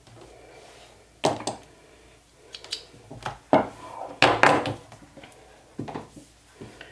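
Handling sounds on a sewing work table: a scattering of short rustles and light knocks, the loudest a cluster a little past the middle, as fabric and quilting tape are handled.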